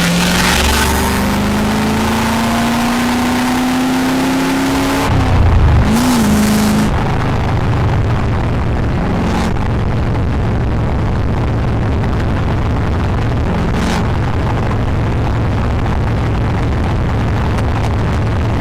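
1973 Chevrolet Corvette V8 with a manual gearbox pulling through a gear, its pitch climbing steadily. About five seconds in the pitch drops at a gear change, and the engine then cruises at a steady drone under a rushing noise.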